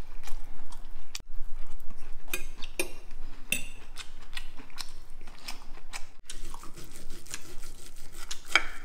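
Knife and fork clinking and scraping against a ceramic plate in irregular sharp clicks while cutting into a bone-in pork chop.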